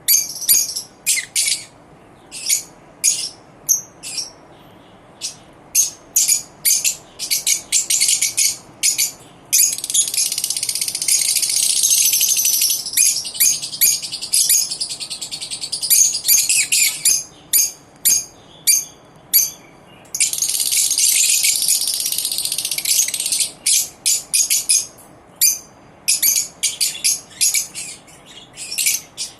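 Lovebirds chattering: rapid, shrill, high-pitched chirps in quick runs, breaking twice into long stretches of continuous screechy chatter.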